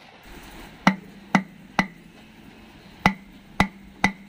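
Six sharp metallic knocks, in two quick sets of three, each with a short ring: a vacuum brake booster's steel shell being struck to free its locked halves so it can be opened.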